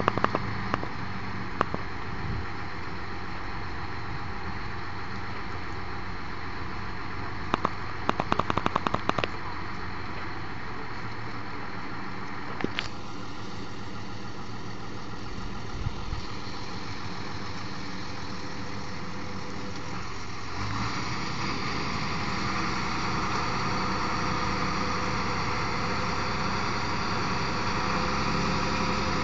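Jeepney engine running as it drives a rough mountain road, with bursts of clicking and knocking near the start and about a third of the way in. About two-thirds of the way in the engine gets louder and stays so.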